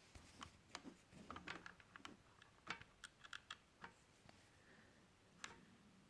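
Faint, irregular clicks and light taps of a small plastic drone and its gearbox being handled and turned over by hand.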